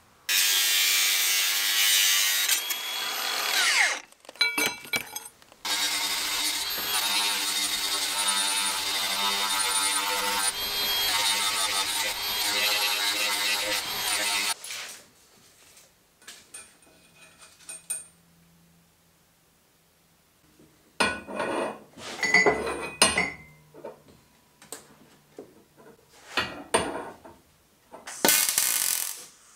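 Makita angle grinder cutting and grinding a rusty steel tube. The first run ends in a falling whine as the disc spins down about four seconds in, followed by a few clinks, then a long steady grinding run of about nine seconds. Quieter knocks and handling follow.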